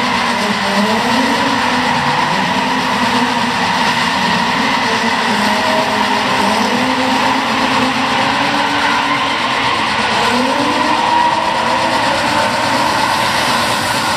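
Nissan 350Z and Skyline R33 drift cars sliding, their engines revving up and down over a continuous hiss of spinning, screeching tyres.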